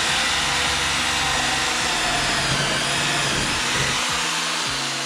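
Electric drill running under load as it bores a hole, a loud steady whine that eases off near the end.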